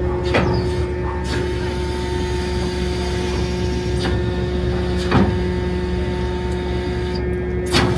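Steady machinery drone aboard a passenger ferry, with a constant hum from the ship's engines, broken by a few sharp knocks about half a second, four, five and nearly eight seconds in.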